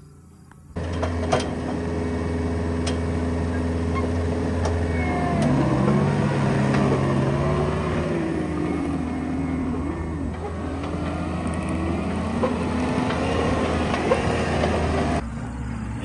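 John Deere compact track loader's diesel engine running steadily under load as it lifts a stack of large square hay bales, with a whine that wanders up and down in pitch; it starts suddenly about a second in and cuts off just before the end.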